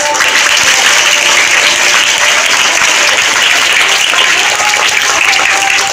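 Audience applause, dense and steady, breaking out just as the dance music stops.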